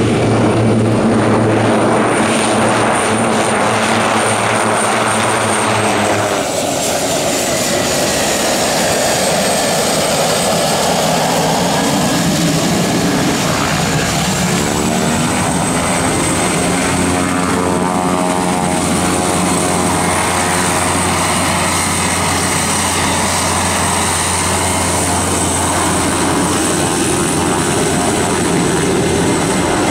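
Pilatus PC-12 single-engine turboprop taxiing on the runway: steady propeller drone under a high turbine whine. The whine drops in pitch a few seconds in and climbs back up about halfway through as the power changes.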